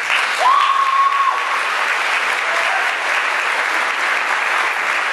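Theatre audience applauding. About half a second in, a loud whistle rises and holds for about a second over the clapping.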